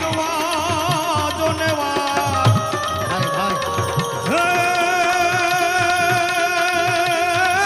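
Gujarati devotional folk music: tabla-style hand drumming under a wavering melody line, which settles into a long, steady held note about four seconds in.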